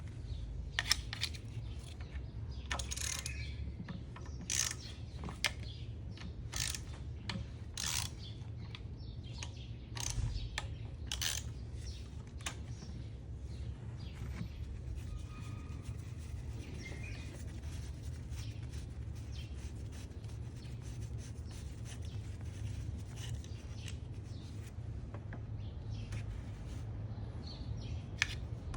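Scattered sharp clicks and knocks of hand work, over a steady low hum. They are thickest in the first half and thin out after about thirteen seconds.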